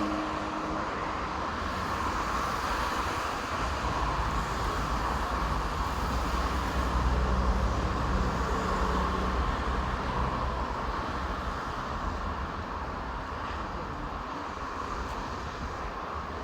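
Steady road traffic noise, with a low rumble that swells from about four seconds in and fades after about ten seconds, as from a heavier vehicle passing.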